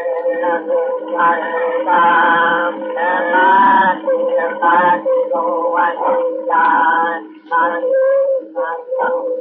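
Pareci Indian song, sung without instruments, from a 1912 phonograph cylinder recording: the sound is thin, with no highs, and a steady hum runs under the voices.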